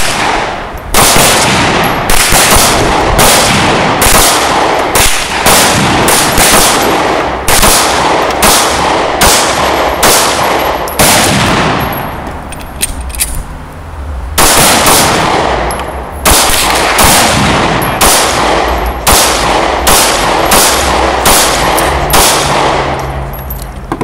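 Pistol shots fired in quick strings of about one to two a second, each crack followed by a short echo. The firing pauses for about two seconds midway, while the empty pistol, its slide locked back, is reloaded, then resumes.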